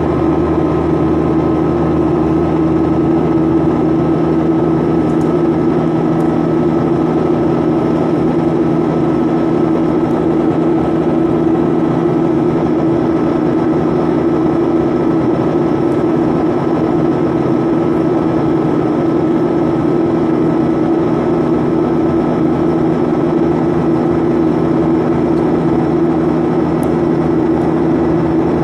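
Steady cabin drone of a Boeing 737 in climb, heard from inside the cabin. The jet engines and rushing air make an even roar with a constant hum, with no change in pitch or level.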